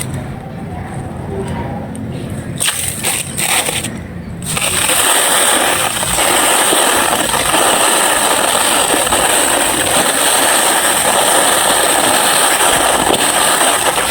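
Dry clay being crumbled by hand, crisp and gritty. For the first four seconds or so there are a few separate crunches, then a continuous dense crackling crumble.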